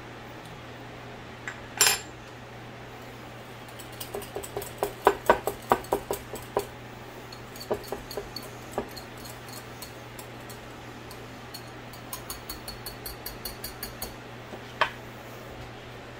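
A wire whisk stirring thick mayonnaise dressing in a bowl, clinking against the bowl in quick runs of ticks, with a sharper clink of a utensil being put down about two seconds in and again near the end. A kitchen fan hums steadily underneath.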